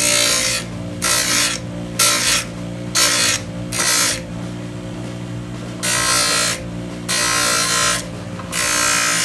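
A tool working on a phone's casing in repeated short bursts of harsh noise, about one a second, then in longer bursts from about six seconds in, over a steady low hum.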